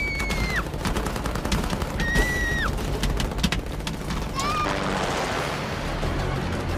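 Action-film trailer mix of rapid gunfire cracks. Two high, held screams, each ending in a falling slide, come near the start and about two seconds in, over music.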